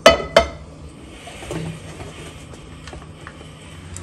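A dark nonstick pan set down on a gas stove's grate: two metal clanks in quick succession with a short ring. A low, faint background hum follows.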